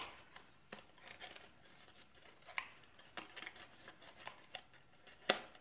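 Stiff printed cardstock being folded and pressed by hand: faint paper rustling and crinkling with a few sharp snaps, the loudest about five seconds in.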